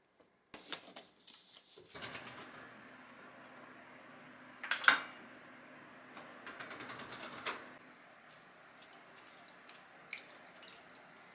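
Kitchen dishes and utensils clinking and knocking, with one loud clatter about five seconds in, over a steady background noise.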